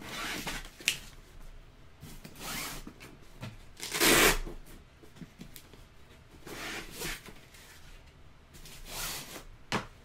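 Box straps being pulled and a cardboard box handled during unpacking: a run of rustling, scraping swishes, the loudest about four seconds in, with a couple of sharp clicks.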